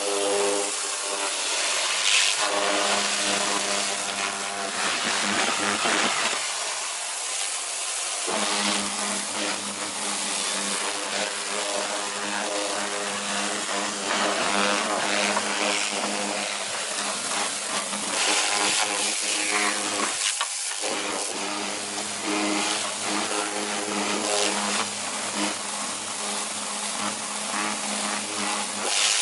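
Kärcher K2.900 Silent home pressure washer running: its motor hums steadily under the hiss of the water jet spraying into a plastic utility sink. The hum cuts out briefly twice.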